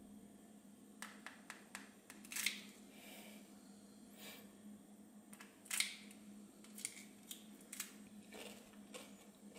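Spoon tapping and cracking the hard caramelized sugar crust of a crème brûlée: a scattered series of sharp, crisp cracks and clicks, the loudest about two and a half and six seconds in.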